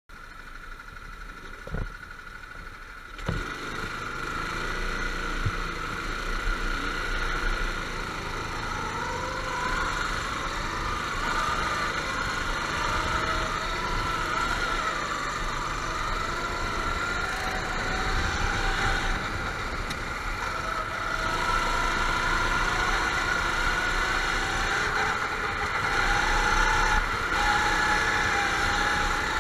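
Several go-kart engines running, their pitch wavering up and down, starting about three seconds in after a couple of sharp clicks.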